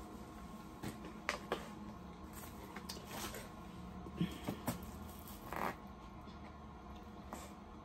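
Scattered soft rustles and small clicks of things being handled, over a faint steady hum.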